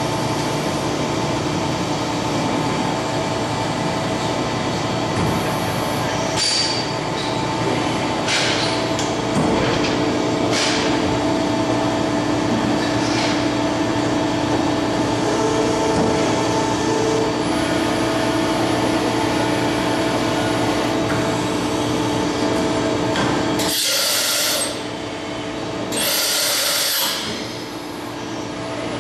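Okuma MCR-B II double-column CNC machining center running, with a steady hum of several tones and short hissing bursts, the two longest near the end.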